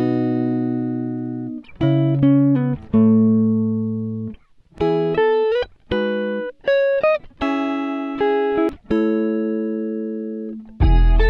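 Background music: a slow plucked-string melody of single notes and short chords that ring out and fade, with a few sliding notes and short pauses between phrases. About half a second before the end, a louder, fuller passage with deep bass comes in.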